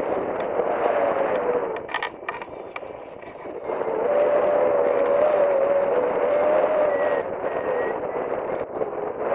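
Wind rushing over the camera microphone of a hang glider in flight, with a wavering whistle running through it. The rush drops off briefly about two seconds in, with a few clicks, then comes back louder.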